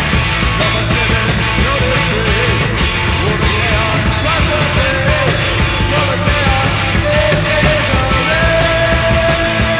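Loud, fast speed metal recording: distorted electric guitars, bass and drums driving steadily, with a bending melodic line over the top.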